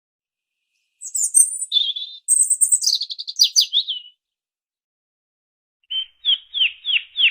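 Songbird singing: a varied phrase of high chirps and trills about a second in, then, after a pause of almost two seconds, a run of quick down-slurred whistles, about three a second.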